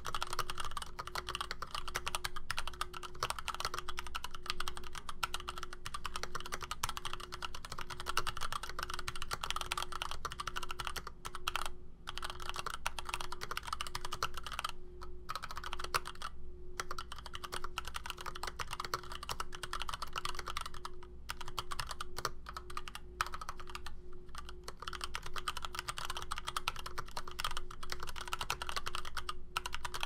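Fast, continuous typing on a Varmilo VA87M tenkeyless mechanical keyboard with Gateron Black linear switches and stock PBT keycaps: a dense run of keystrokes with a few brief pauses.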